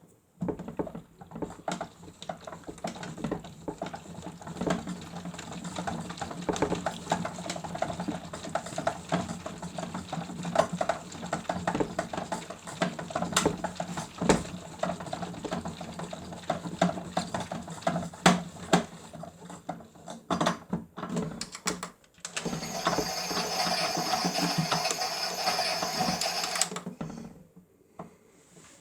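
Miele W1 toy washing machine running its cycle: its small motor hums steadily under a stream of clicks and rattles. About three-quarters of the way through this gives way to a louder, hissing whirr that lasts about four seconds and then cuts off.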